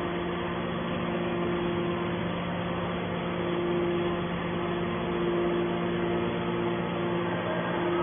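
Hydraulic scrap metal baler's power unit running steadily: an even motor-and-pump drone with a low hum and a higher tone that fades and returns.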